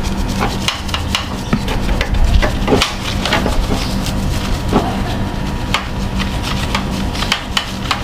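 Hand work on an air-conditioner outdoor unit: irregular knocks, taps and rubbing clatter of parts and tools being handled, over a steady low hum.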